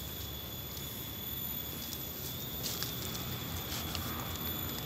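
Steady high-pitched trill of insects, probably crickets or cicadas, with faint rustling and a few light ticks, likely dry bamboo leaves underfoot.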